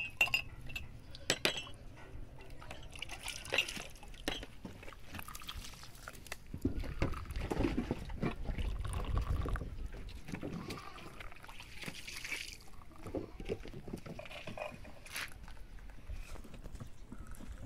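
Tea poured from a ceramic teapot into small glass tea cups, one glass after another, with a few glass clinks at the start. A low rumble runs about seven to ten seconds in.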